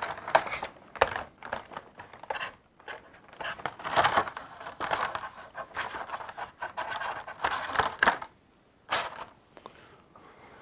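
Clear plastic packaging crinkling and scraping as small plastic toy parts are worked loose from their tray, with several sharp plastic clicks as the pieces snap free and are set down on a table.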